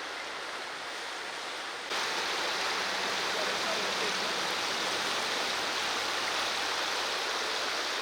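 Rushing current of a river, a steady even wash of water noise that turns suddenly louder about two seconds in and then holds steady.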